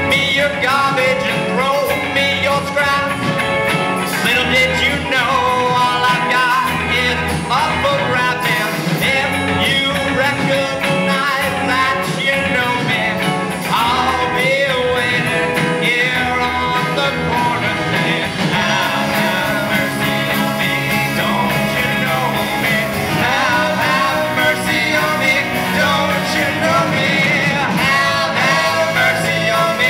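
Live rock band playing a song in concert, with a voice singing over the band.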